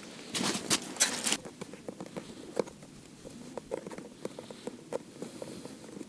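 A few loud crunching scrapes in the first second or so, then light, irregular clicks and taps as a small plastic bloodworm box is handled.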